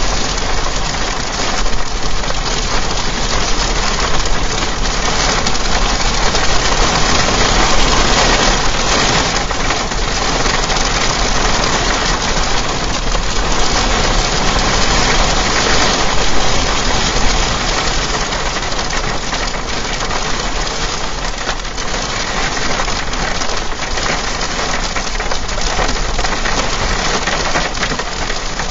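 Storm of strong wind, possibly with rain: a loud, steady rushing hiss with no words, swelling a little a few times and easing slightly near the end.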